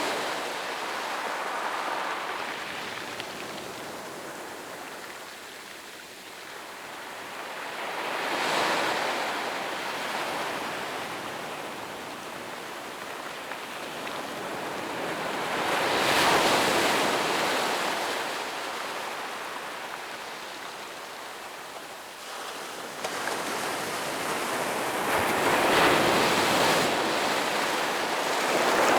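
Gentle sea waves breaking and washing up a sandy beach. Each wave swells to a hissing peak and fades, about every eight seconds, three times.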